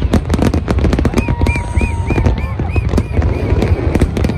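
Fireworks going off in a dense barrage: rapid crackling bangs over a continuous low rumble. A short series of repeated high whistling tones sounds through the middle.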